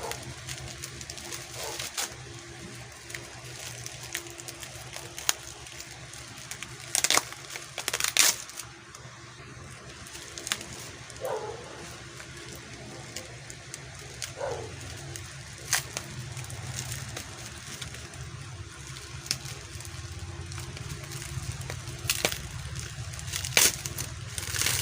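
Plastic packaging being handled and unwrapped: scattered crinkles and sharp crackles every few seconds over a low steady hum.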